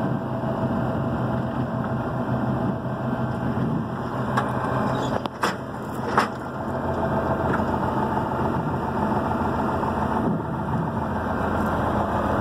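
Car-hauler truck's diesel engine idling steadily, with two sharp knocks about a second apart a little past halfway.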